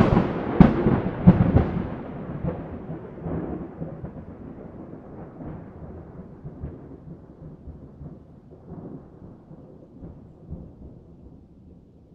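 A thunderclap: a sudden sharp crack followed by a few more cracks in the first second and a half, then a rumble that rolls on and slowly fades away.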